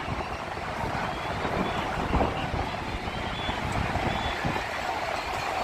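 Steady road-traffic noise from a jam of vehicles: engines running in a continuous low rumble, with a few faint, short high beeps scattered through it.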